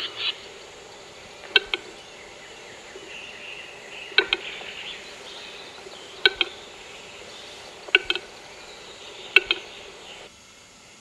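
Western capercaillie cock in courtship display, giving sharp double clicks, about one pair every two seconds, five pairs in all: the slow opening clicks of its lek song.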